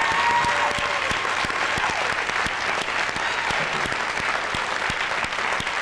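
A large audience clapping steadily, with a few cheers from voices at the start.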